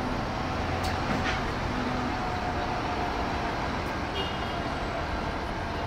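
Steady downtown street traffic noise with the low drone of an idling city bus, and a couple of light clicks about a second in.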